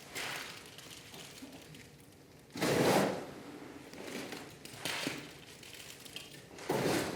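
Wet concrete being worked by hand during a floor pour: three short scraping strokes, the loudest about three seconds in, another about five seconds in and one near the end.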